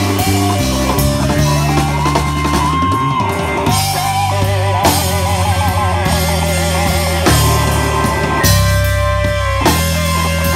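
Live blues band playing an instrumental passage: an electric guitar lead on a Fender Stratocaster with bent notes and wavering vibrato, over bass guitar and a drum kit.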